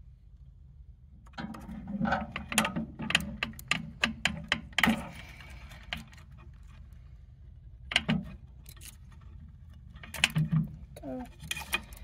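Small plastic wire connectors being squeezed and worked loose from a safe keypad's circuit board inside the steel door, giving sharp clicks and light rattles. There is a dense run of clicks for a few seconds, then a lone click and a short cluster near the end, over a low steady hum.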